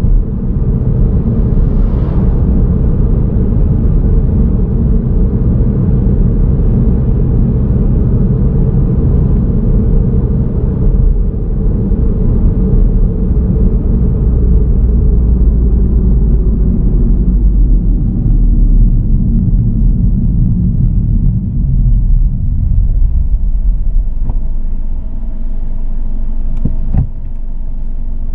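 Car driving on a road: a steady low rumble of tyre, wind and engine noise, which eases a little in the last few seconds. A short sharp click comes near the end.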